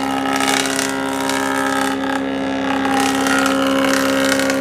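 Electric woodworking joint-cutting machine running, its motor giving a steady hum while the cutter works through a piece of wood, the higher cutting noise rising and falling as the wood is fed.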